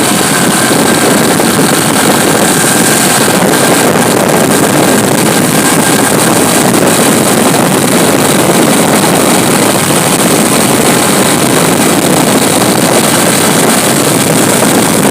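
Vehicle driving in the rain: a loud, steady rush of wind and water noise on the microphone with engine noise underneath.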